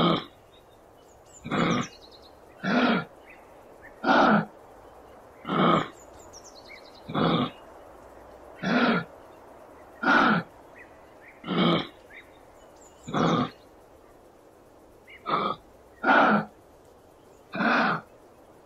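Kangaroo calling over and over in short, coarse calls, one about every second and a half.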